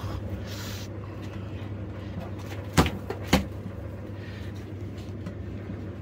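Steady low hum of a running electric fan, with two sharp knocks about half a second apart a little before the middle.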